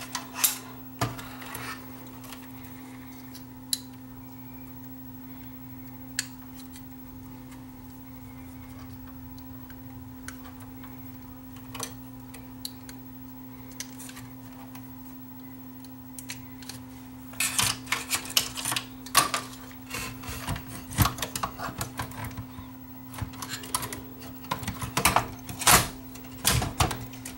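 Clicks and clatter of a cassette deck's tape transport mechanism being handled and set into its metal chassis. There are a few single clicks at first, then a busy run of clatter over the last ten seconds. A steady low hum sits underneath.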